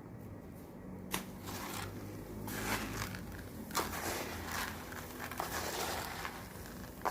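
Dry grain feed mix of wheat, bran and crushed corn being stirred and turned by hand in a basin: an irregular gritty rustling with a few sharp clicks and scrapes.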